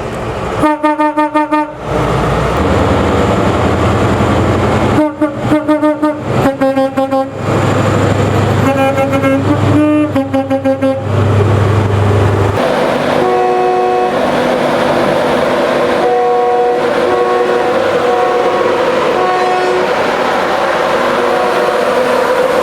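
Train horns: several groups of short horn blasts over the low rumble of a train, then, about twelve seconds in, a multi-note horn chord held long and steady.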